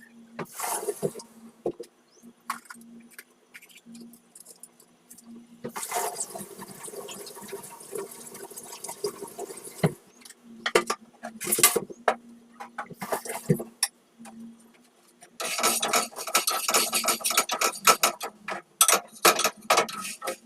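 Household kitchen handling sounds: scattered knocks and clinks of dishes and utensils, a few seconds of running water about six seconds in, and dense clattering in the last few seconds, over a faint steady hum.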